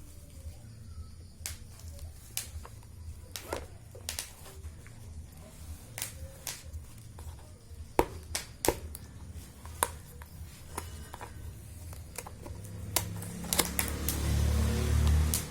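Irregular sharp clicks and taps from handling a mechanical keyboard and its packaging, a few seconds apart, over a low hum. Near the end comes a louder stretch of rustling with a low rumble.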